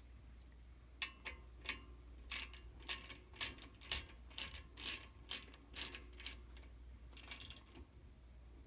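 Sharp metallic clicks and taps from the pins and spring clip of a front brake caliper being fitted by hand, an irregular run of about fifteen at roughly two a second, starting about a second in and ending near the end.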